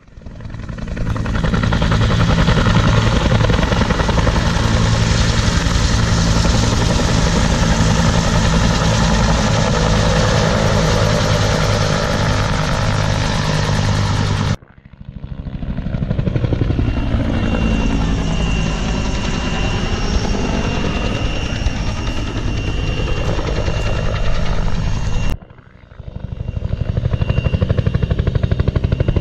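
Bell UH-1 Huey and AH-1 Cobra helicopters flying low, their two-blade rotors beating heavily over a thin steady turbine whine. The pitch of the sound sweeps as they pass. The sound cuts off abruptly twice, about 15 and 25 seconds in.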